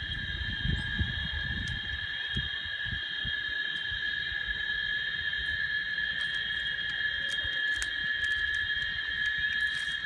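Chorus of cicadas buzzing steadily, several high pitches held at once without a break. A low rumble is heard in the first couple of seconds.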